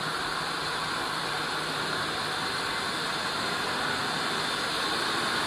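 Steady running noise of machinery on a cable-factory floor: an even hiss with a faint low hum underneath, unchanging throughout.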